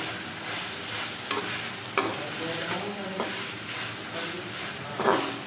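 Grated carrot, potatoes and peas sizzling steadily in oil in an aluminium pot while a spatula stirs them, scraping and knocking against the pot a few times, the loudest knock near the end.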